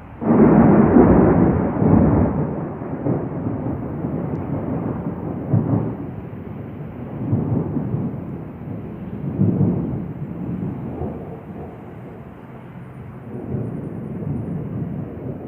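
A close thunderclap breaks in suddenly, then rolls on as long, rumbling thunder that swells again several times before it fades.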